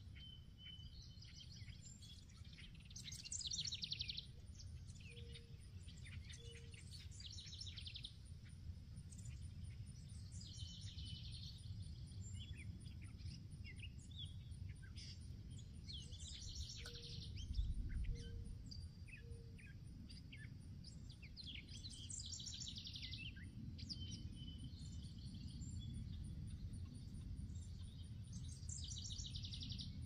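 Songbirds singing in a meadow: one bird repeats a short, fast, high song phrase about every six seconds while others chirp now and then, over a steady low rumble. Twice a faint low three-note call sounds, and a dull low bump comes a little past halfway.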